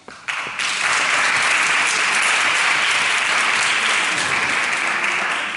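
Applause from spectators in a hall. It builds up in the first half second, stays steady, then begins to fade near the end.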